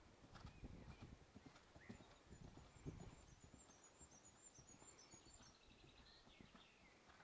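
Faint, soft, irregular thuds of a pony's hooves cantering on a sand arena surface.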